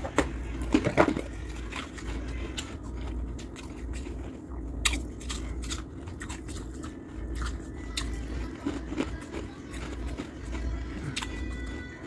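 Shaved freezer ice being crunched and chewed: irregular sharp crunches and crackles, loudest about a second in, over a steady low hum.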